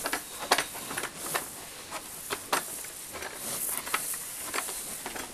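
A calf eating rolled oats out of a plastic bucket: irregular sharp crunches and clicks of its muzzle and teeth in the oats and against the bucket.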